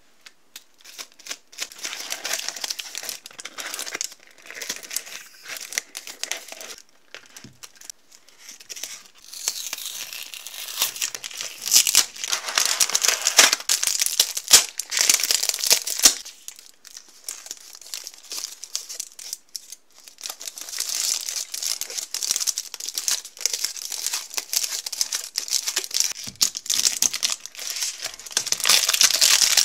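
Hands crinkling and tearing the gold and silver foil wrapper of a Grand Ferrero Rocher, in uneven bouts of crackling with short pauses. The crackling is loudest through the middle and toward the end as the foil is peeled open.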